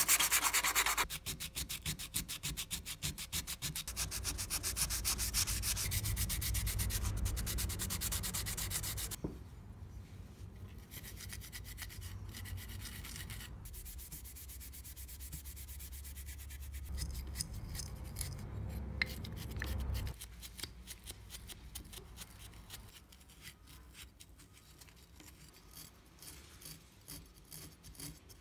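Sanding and rubbing by hand: a fast run of back-and-forth strokes for the first several seconds, then quieter, intermittent rubbing.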